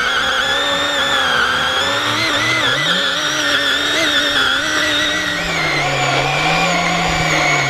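Greenworks battery-powered chainsaw cutting through a thick log: the electric motor and chain whine steadily, the pitch wavering slightly as the chain bites into the wood.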